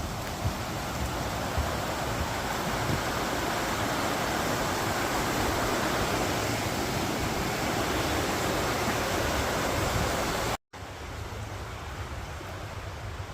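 Rushing water, a steady full hiss like a stream or flowing water channel. It cuts out for an instant near the end and resumes quieter.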